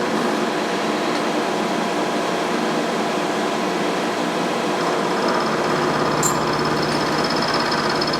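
Milling machine running steadily. About five seconds in a low hum and a high whine join in, with a brief high click a second later.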